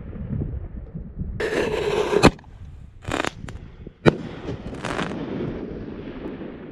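Consumer artillery-shell fireworks going off: a rushing hiss ends in a sharp bang a little over two seconds in. A second sharp bang comes about four seconds in, with short hisses before and after it, over a steady low rumble.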